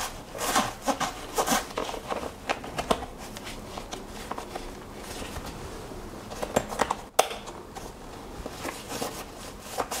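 Hands handling a nylon fabric bag while hooking a shoulder strap's small metal snap hook onto its webbing loops: fabric rustling with scattered small clicks of the metal clip.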